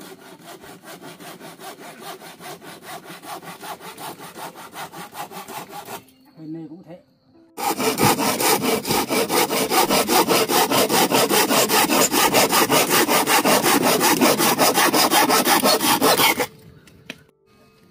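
Hand saw cutting through wood in quick, even strokes. A quieter run of sawing comes first, then a pause of about a second and a half, then a much louder run that stops near the end.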